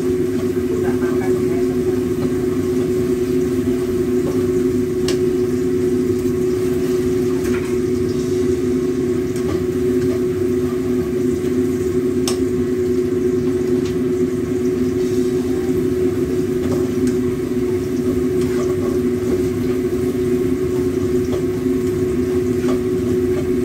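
A steady mechanical hum fills the kitchen while food is stir-fried in a wok on a gas stove, with a metal spatula scraping and clinking against the pan a few times.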